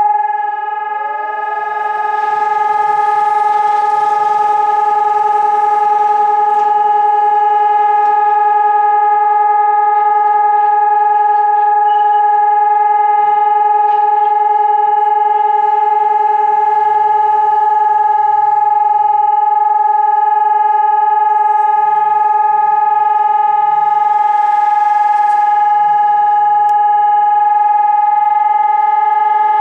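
Civil-defence warning siren sounding one loud, steady, unwavering tone that rises into pitch about a second in and then holds. It is the continuous test tone of a scheduled check of the city's public warning system.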